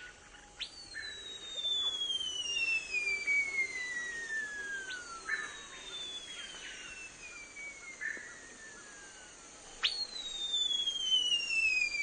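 Curassow calling: three long whistles, each jumping up sharply and then sliding steadily down in pitch over three to four seconds.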